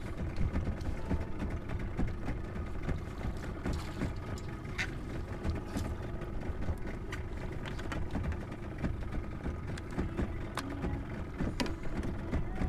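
Spinning fishing reel being wound in with a squid on the line, giving scattered light clicks and rattles over a steady low rumble.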